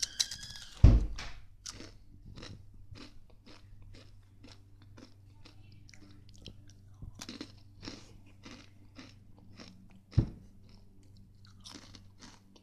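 A person crunching and chewing spicy corn snacks close to the microphone, with short crisp crunches about two or three times a second. Two dull thumps stand out, one about a second in and one about ten seconds in.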